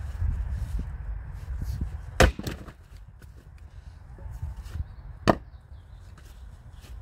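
Two sharp wooden knocks about three seconds apart as log rounds are handled and set down on a wooden chopping block.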